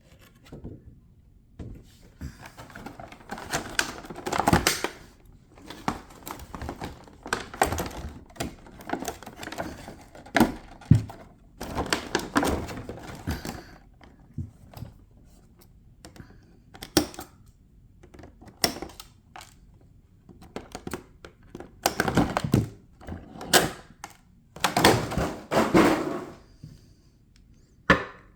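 Packaging being handled during an unboxing: irregular clicks, knocks and bursts of rustling as the box and its contents are opened and moved about.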